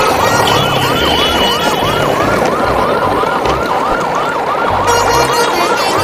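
A fast wailing siren, about three rising-and-falling sweeps a second, going on without a break over background music with a bass line.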